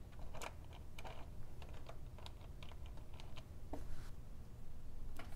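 Light, irregular clicks and taps of small HO scale model cabooses being pushed by hand along the track, wheels and couplers clicking on the rails, over a faint low hum.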